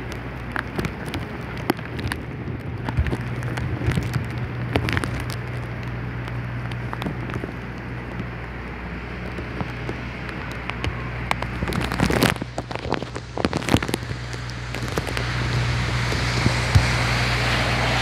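Heavy rain in strong wind: a steady hiss of rain on pavement and surfaces, with frequent sharp taps of drops landing close by. The hiss grows heavier near the end.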